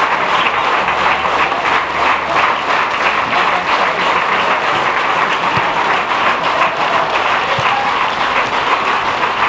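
Football crowd in the stands clapping and cheering, a steady, unbroken din.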